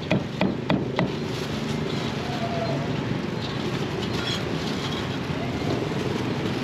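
About four sharp strikes of a cleaver chopping grilled beef on a thick wooden chopping block in the first second. After that comes the steady background noise of a busy street market with distant voices.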